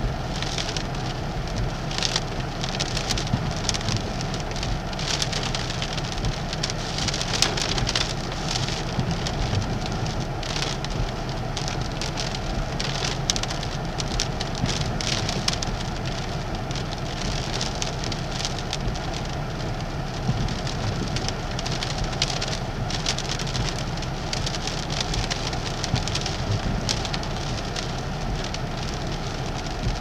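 Hurricane-force Bora wind storm on the sea front: a steady roar of wind, rain and rough surf, with many short crackles of gusts and rain hitting the microphone.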